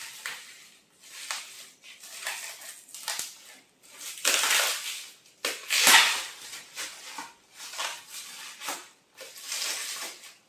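Plastic wrapping crinkling and rustling by hand in irregular bursts as a small cosmetics jar is unwrapped, loudest about halfway through.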